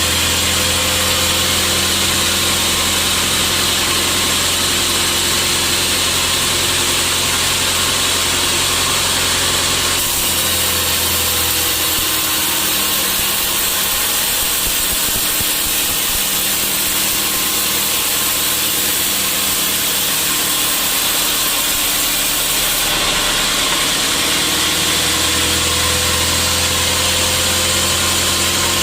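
Sawmill saw and its motor running steadily while sawing teak. Between about ten and twenty-four seconds in, the low hum drops away and the higher hiss changes, then the hum returns.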